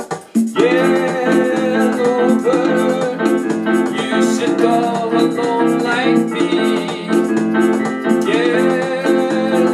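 Electronic keyboard playing chords and a melody with a string-piano voice over its built-in merengue rhythm at 124 bpm. The chords and melody come in about half a second in, over the rhythm's percussion.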